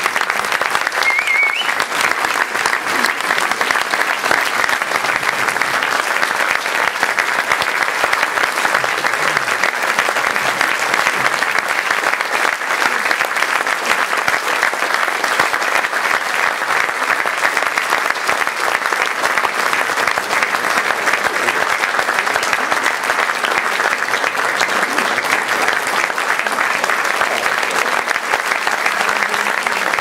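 A theatre audience applauding, a dense and steady clapping that goes on without letting up.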